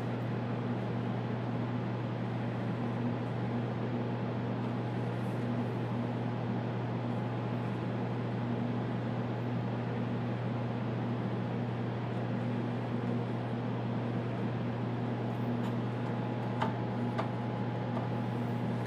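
Steady low mechanical hum of the room's cooling fans and air conditioning, with a faint steady whine above it. A few light clicks near the end.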